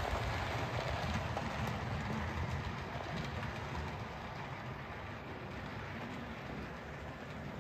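Model railway train, a Class 47 diesel locomotive with its coaches, running along the layout's track with a steady rumble and hiss of wheels on rail that fades gradually as it moves away.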